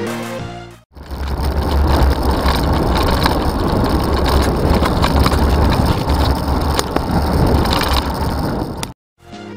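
Background music fades out in the first second. A loud, steady rush of wind buffeting the microphone of a bicycle-mounted camera follows, with road noise and occasional small clicks and rattles from the bike as it rides along. The rush cuts off suddenly near the end.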